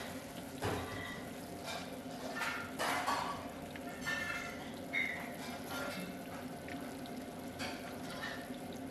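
Batter-coated chicken pieces deep-frying in hot oil in an iron wok: a steady sizzle and bubbling, with a few short, louder knocks.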